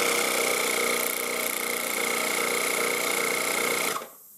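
12 V portable car tyre air compressor running, a steady buzzing motor-and-piston noise with a high whine, that cuts off suddenly about four seconds in. It is pumping against its hose outlet held shut by a finger, drawing more current as the pressure builds.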